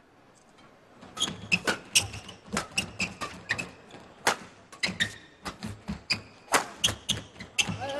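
Badminton rally: sharp racket strikes on the shuttlecock mixed with the squeak and slap of players' court shoes, a quick irregular run of hits starting about a second in.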